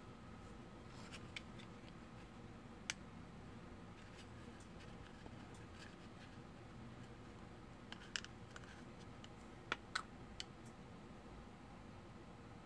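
Near silence broken by a handful of faint, sharp clicks and taps from small plastic model parts and a glue bottle being handled on a workbench.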